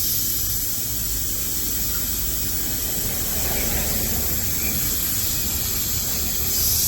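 Compressed air hissing steadily at a tubeless tyre. The hiss gets louder near the end.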